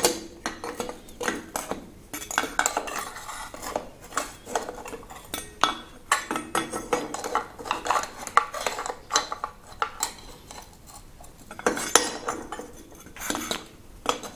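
Metal e-bike chainrings clinking and scraping as they are fitted by hand onto the crank spider: irregular small metallic knocks and rattles.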